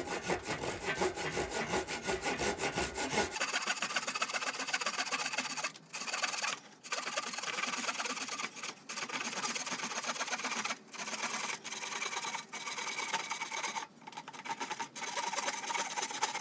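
Coarse-tooth hand saw cutting through wood in fast back-and-forth strokes, stopping briefly several times.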